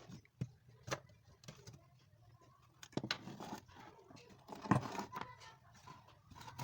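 Irregular clicks and knocks of objects being handled, with short scraping rustles about three seconds in and again near five seconds, where the loudest knock falls.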